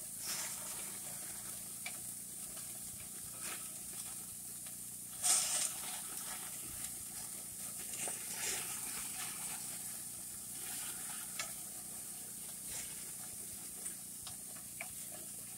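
Hamburger patties sizzling over the open flames of a gas grill, a steady hiss. A few short scrapes and clicks of a metal spatula on the grate break in, the loudest about five seconds in.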